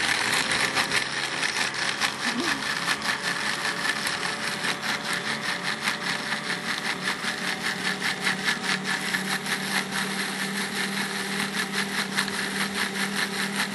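Countertop blender running at a steady speed, grinding cashews in a little water into a smooth cheese-sauce base: a constant motor hum under a loud whirring, grinding noise that stops near the end.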